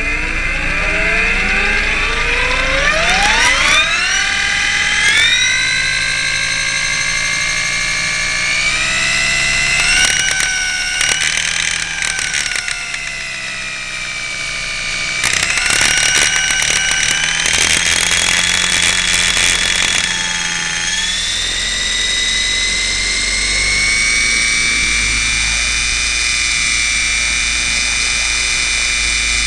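R/C helicopter's motor and rotor heard close up from on board. It spools up as a steeply rising whine over the first few seconds, then runs at speed with its pitch stepping up and down a few times. Bursts of crackly clicking come in the middle.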